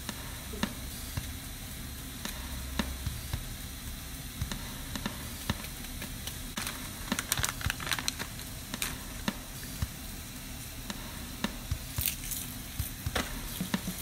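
Minced chicken and vegetables sizzling steadily in a frying pan, with scattered pops and crackles that come thicker about halfway through and again near the end.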